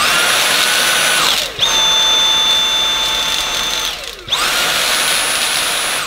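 Dyson V7 Animal cordless vacuum's motor spinning up to a high whine and being switched between its maximum and minimum power settings. The whine drops to a lower pitch about a second and a half in, with a brief dip at the change, then returns to the first pitch about four seconds in.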